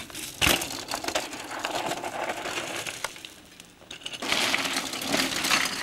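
A mountain bike landing from a jump with a single thump about half a second in, then tyres crunching over dry dirt. From about four seconds in, a loud, rough hiss of a tyre skidding through loose, dusty gravel.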